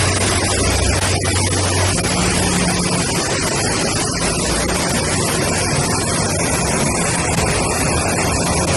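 Loud, steady rushing noise with a low engine hum beneath it; the hum steps up in pitch about two seconds in.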